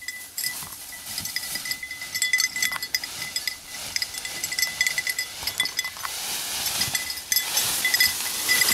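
Small bell on a German shorthaired pointer's collar jingling over and over as the dog moves through cover, over crackling of dry brush.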